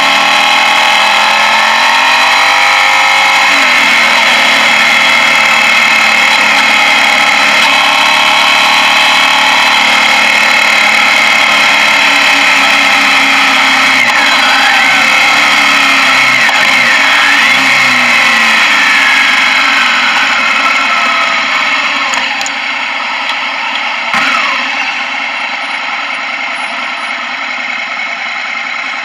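Suzuki Gladius 645 cc V-twin motorcycle engine running under way, its pitch dipping and rising several times with throttle and gear changes. About two-thirds of the way through it slows and settles to a quieter idle, with a single short knock soon after.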